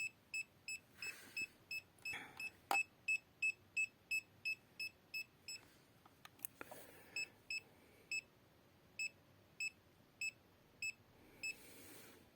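R&D RD630 EMF meter's warning alarm beeping in short high beeps, about three a second, then after a brief pause more slowly, a little under two a second. The alarm signals strong electromagnetic emission from a USB AC/DC adapter under load. A couple of faint clicks come between the beeps.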